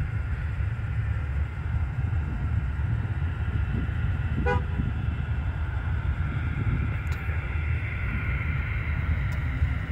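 Distant jet airliner engines whining steadily over a low rumble of wind on the microphone, the whine growing a little stronger in the second half. A single short horn toot sounds about halfway through.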